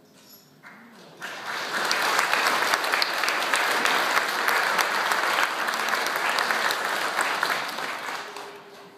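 Church congregation applauding: clapping swells up about a second in, holds steady, and dies away near the end.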